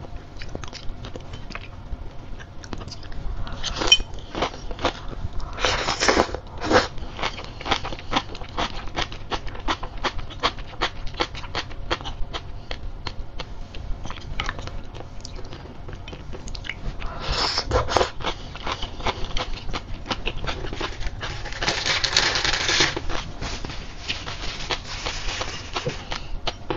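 Close-miked chewing of crisp sea grapes (Caulerpa seaweed): a dense run of tiny pops and clicks as the beads burst in the mouth, with a few louder hissing stretches.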